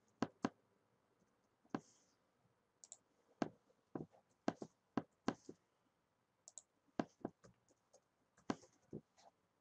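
Computer keyboard keys clicking in slow, irregular keystrokes, single or in short runs with pauses between.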